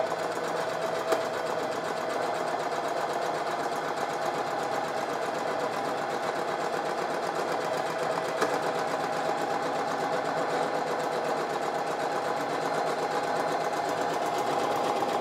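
Bernette Academy sewing machine running steadily at a fast, even stitch rhythm, stitching an automatic buttonhole under foot-pedal control.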